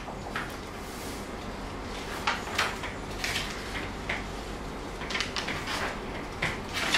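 Small plastic items and a book handled at a table: a scattered string of short clicks and rustles over steady room noise.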